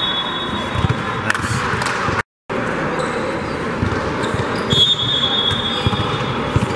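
Basketball game in a large gym: a ball bouncing on the court, with scattered knocks and a steady murmur of activity. About five seconds in, a high steady whistle-like tone lasts about a second. The sound cuts out completely for a moment a little after two seconds.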